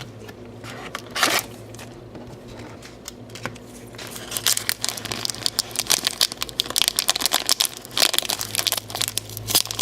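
Foil wrapper of a Japanese Pokémon card booster pack crinkling as it is handled and torn open. A short rip just after a second in, then dense crackling from about four seconds in.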